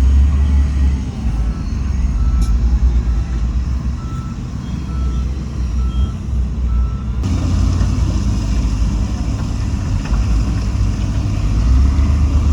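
Heavy diesel earthmoving machinery running with a deep, steady rumble while a reversing alarm beeps at about two beeps a second, then stops. About seven seconds in, a steady hiss suddenly joins the engine noise.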